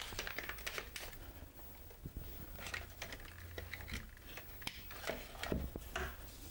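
Faint, irregular small clicks and rattles of cables and plastic plugs being handled and pushed into connectors.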